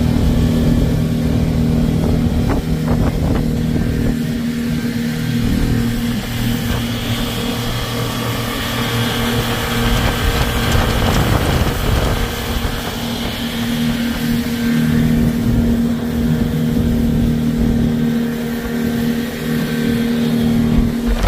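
Yamaha 250 outboard motor running at cruising speed with the boat planing at about 40 mph: a steady engine drone under a rush of wind and water.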